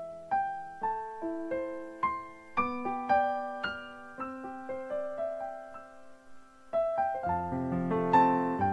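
Background piano music: a slow melody of single notes, growing fuller with chords about seven seconds in.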